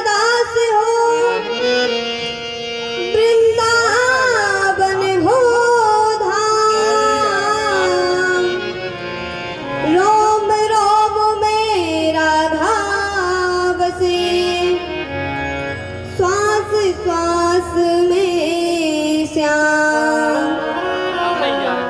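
A woman singing a devotional song into a microphone over instrumental accompaniment, in phrases of long held, sliding notes over a steady low backing.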